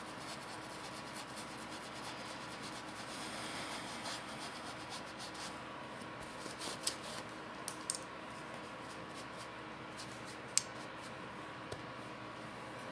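Flat paintbrush rubbing oil paint into fabric, a dry scrubbing sound, with a few light clicks in the second half.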